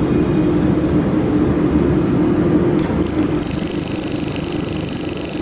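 Steady hum of a mold-repair laser welding machine and its dust-collection fan. About three seconds in, the pulsed laser starts firing: a fast, high-pitched run of ticks.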